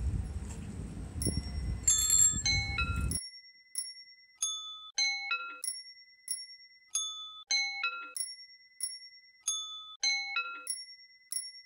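Outdoor background rumble for about the first three seconds, then a short repeating tune of bright bicycle-bell dings at several pitches, each ding ringing and fading, the phrase coming round about every two and a half seconds.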